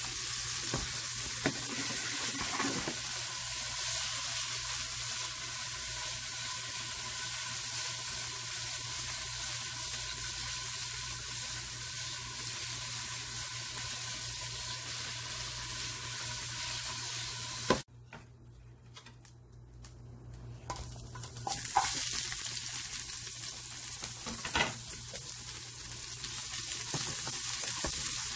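Oil sizzling in a frying pan as kofta fingers fry, a steady hiss. About two-thirds of the way through it cuts off abruptly. After a quieter gap, sizzling resumes as diced onion and green pepper sauté, with a couple of sharp knocks against the pan.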